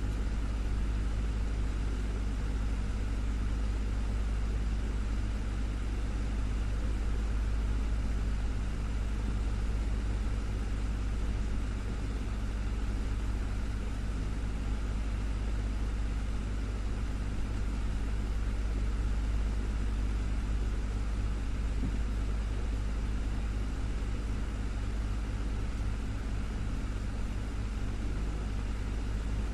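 Desktop fan running steadily, a continuous low hum and whir with even airflow hiss.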